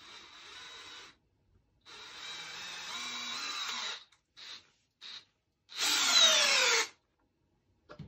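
DeWalt DCD778 18V brushless hammer drill in second gear driving a long screw into a block of wood, run in short squeezes: a one-second run, a longer two-second run, two quick blips, then the loudest run, its pitch falling as the screw goes in deep. A single click near the end.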